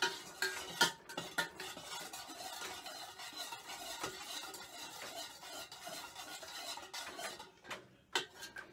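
A metal spoon stirring liquid in an enamel pot, scraping and clinking against the pot's sides and bottom as sugar is dissolved into the bloodworm mix. The stirring eases off near the end, followed by a couple of clinks.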